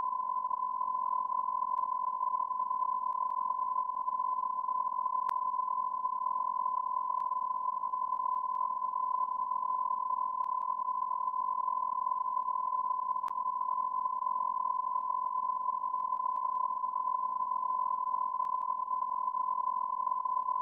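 A continuous electronic beep tone held at one steady pitch without a break, with a few faint clicks.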